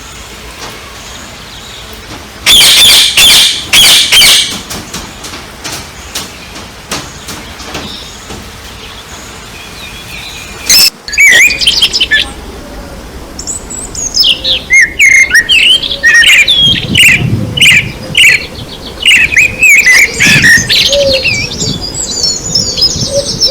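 Several birds chirping and calling outdoors, short quick chirps coming thick and fast in the second half, over steady background noise. A few loud bursts of noise stand out about three seconds in.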